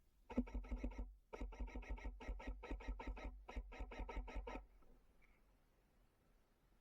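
Airsoft electric gun (AEG) firing on full auto: a short burst, then after a brief pause a longer burst of about three seconds, rapid evenly spaced shots.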